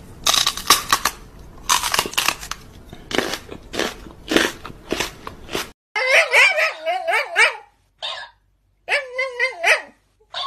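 Crunching and crackling, like someone chewing crunchy food, for about six seconds. After a cut, a Shiba Inu growls and snarls in three wavering, pitched bouts.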